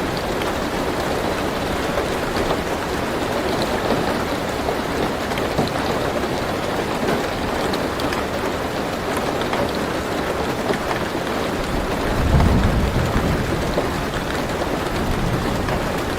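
Steady rain falling on a car roof, heard from inside the car, with a low rumble of thunder swelling about twelve seconds in.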